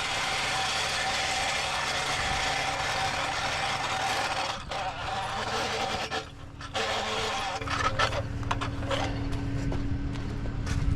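Truck engine idling with a steady hum. A wide hiss sits over it for the first few seconds, then scattered knocks and clatter come in the second half.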